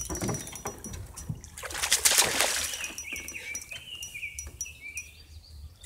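A hooked bass thrashing at the water's surface beside the boat, with one loud splash about two seconds in.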